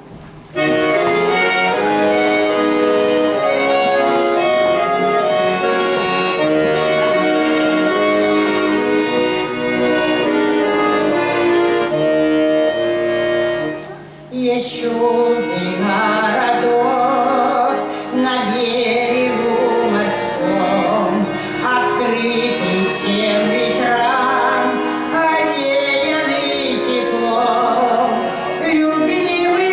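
A song with accordion accompaniment: an instrumental introduction of held notes. About halfway through it dips briefly, and a woman's voice comes in singing with vibrato over the accordion.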